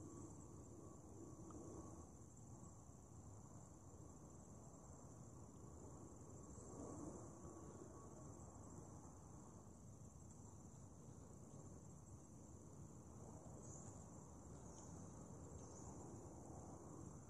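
Faint, steady, high-pitched chorus of insects from the forest, over a low background rumble.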